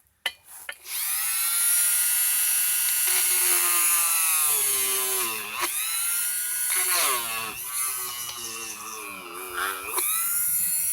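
Small electric drill with a very small bit running, drilling a pilot hole for a nail through the javelin head's socket into the wooden shaft. A steady high motor whine starts about a second in and sags in pitch twice midway and once near the end as the bit loads up, then picks back up.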